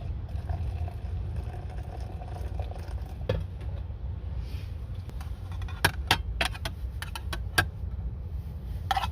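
Steady low rumble of wind buffeting. About six seconds in comes a run of sharp clicks and taps, some half a dozen within two seconds.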